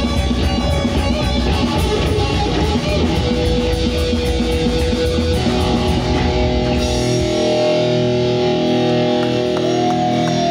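Live heavy metal band playing distorted electric guitars, bass guitar and drums. About seven seconds in the drums and bass drop out, leaving held, ringing guitar notes, one of them bent in pitch near the end.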